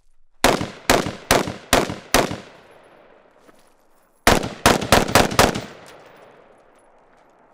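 Carbine gunfire in two quick strings: five shots about half a second apart starting half a second in, then after a pause a faster string of about six shots a little past four seconds in, each string trailing off in echo.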